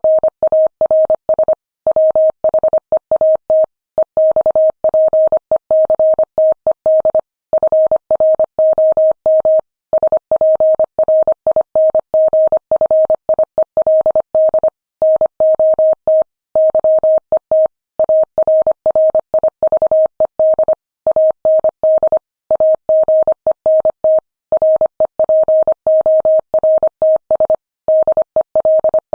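Morse code at 25 words per minute: a single steady beep keyed on and off in rapid dots and dashes, with short gaps between letters and longer ones between words.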